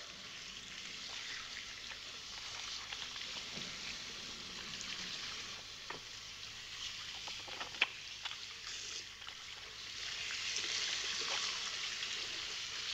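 Steady hiss of an old film soundtrack, with a few faint clicks and ticks scattered through it. The hiss grows slightly louder near the end.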